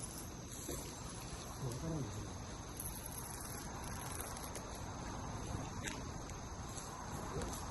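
Steady high-pitched chorus of insects chirping, with a faint brief voice-like sound about two seconds in and again near the end.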